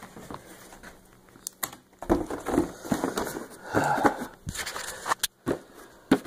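Handling of a cardboard board-game box: rustling and scraping as the lid goes back on, with a few sharp knocks.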